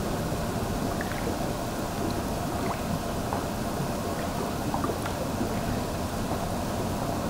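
Steady rush and splash of pond water churned by an aerator, with a few faint light ticks.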